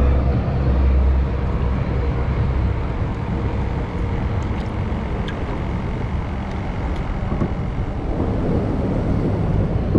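Steady low rumble of outdoor background noise, heaviest in the first three seconds, with a few faint clicks around the middle.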